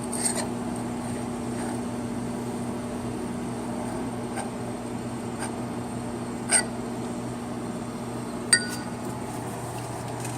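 Steady machine hum with several sharp metallic clinks; the loudest, about eight and a half seconds in, rings briefly.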